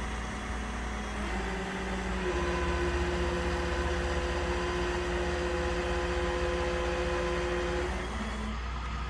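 Tow truck running, with a low rumble and a steady mechanical whine that starts about a second in and stops near the end.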